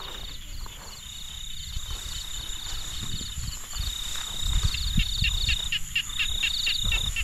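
Crickets and other night insects calling: long steady high trills with short breaks, over rows of rapid pulsed chirps. Low rumbling and thumping noise grows louder about halfway through.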